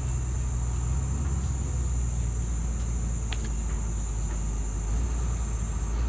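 Wheel loader (payloader) engine running steadily nearby: a constant low rumble.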